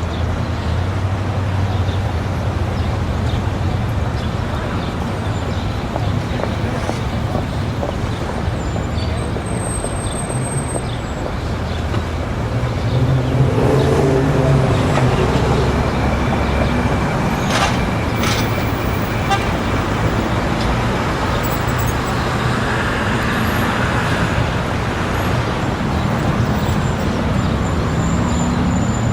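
Busy city street: road traffic running steadily with a murmur of crowd voices, getting louder a little before halfway.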